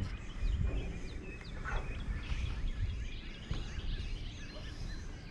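Small birds chirping, many short calls, over a steady low outdoor rumble.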